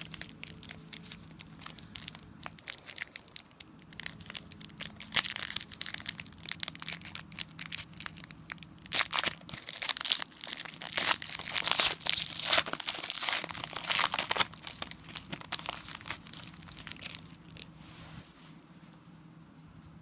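Foil wrapper of a Totally Certified football card pack being torn open and then crinkled and crumpled in the hands. The crackling is densest and loudest in the middle and dies away over the last couple of seconds.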